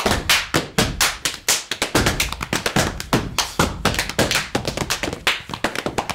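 Body percussion by two performers: quick, rhythmic hand slaps on chest and thighs, hand claps and foot stomps on a stage floor, several strikes a second without a break.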